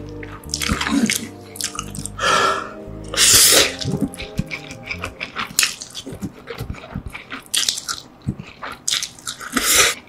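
Slurping instant noodles and chewing, with many small wet mouth clicks. The loudest slurp comes about three seconds in and another comes near the end. Background music plays underneath.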